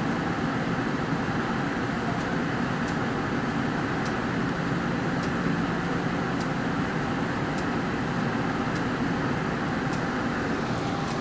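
MBTA Green Line light rail train's steady running noise, a constant rumble and hiss, with faint high ticks about once a second.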